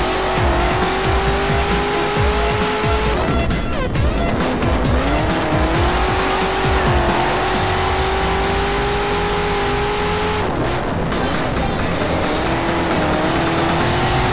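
Off-road race buggy's engine running hard at high revs. Its note climbs steadily, drops sharply about three seconds in, climbs again, and drops once more about ten seconds in.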